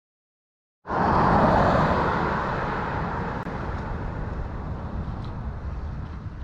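Road traffic: a car going by, its noise coming in suddenly about a second in, loudest just after and slowly fading away, with wind buffeting the microphone.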